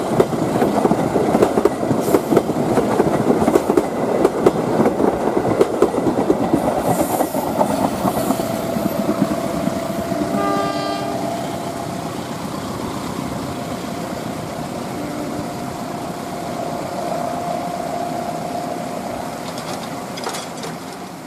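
KA Penataran passenger train's coaches rolling past, wheels clattering over the rail joints, then fading as the train goes away round the curve. About ten seconds in comes a short horn blast, and a steady whine carries on through the second half.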